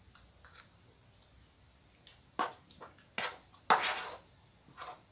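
Fork and spoon scraping and clicking against a plate while instant fried noodles are eaten: a handful of short scrapes, the loudest about three and a half seconds in.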